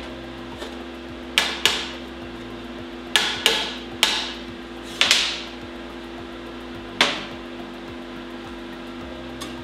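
Sharp metallic knocks, in pairs and singles through the first seven seconds, each ringing briefly, as a thin rolled 304 stainless steel tube is knocked and set against the steel bench and jig. A steady low hum runs underneath.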